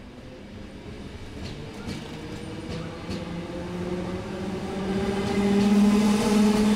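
ÖBB S-Bahn electric multiple unit pulling out of the platform, its drive whining in several tones that rise in pitch and grow steadily louder as the train accelerates.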